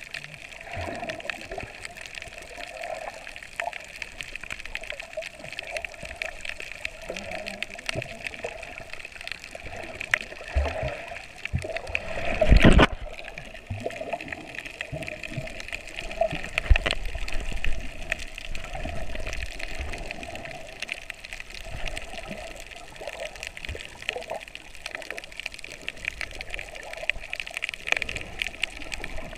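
Underwater sound heard through an action camera's housing: a steady muffled water noise scattered with small clicks and crackles. About 12 to 13 seconds in comes one loud rush and churn as a person plunges into the water in a cloud of bubbles.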